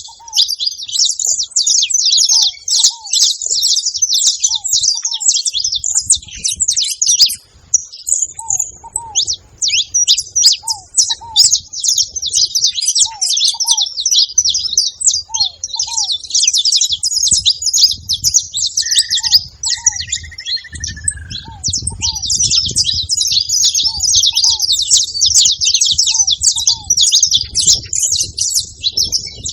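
A flock of saffron finches chattering together: many overlapping high chirps that run on without a break. A lower pair of short notes repeats every second or two underneath.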